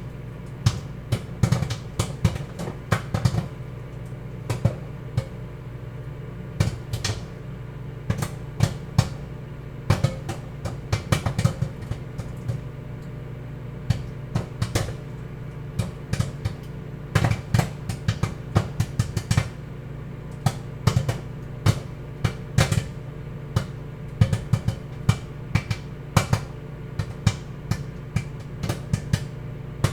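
Popcorn kernels popping in a running microwave oven: frequent, irregular sharp pops, sometimes in quick clusters, over the oven's steady hum.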